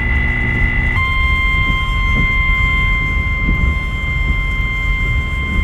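Electronic alert tones: a steady tone changes about a second in to the 1050 Hz NOAA Weather Radio warning alarm, a single high-pitched, ear-piercing tone held steady. A low rumble runs underneath.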